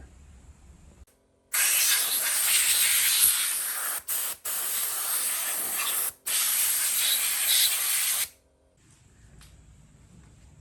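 A pressurised jet hissing hard in several long blasts with brief breaks between them, lasting about seven seconds and then stopping abruptly.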